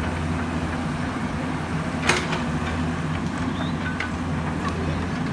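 Excavator's diesel engine running steadily, with a single sharp clank about two seconds in.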